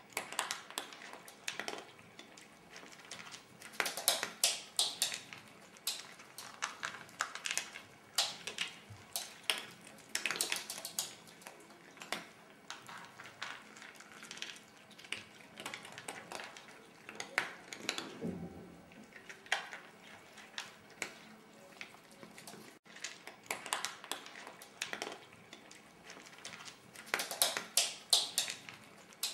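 A cat and a ferret eating dry cat kibble from a plastic bowl: irregular clusters of sharp clicks and crunches as the pellets are picked up and chewed and rattle against the bowl.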